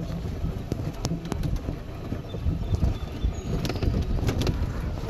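Golf cart driving across a grass lawn: a steady low rumble with scattered light rattles and knocks, and wind buffeting the microphone.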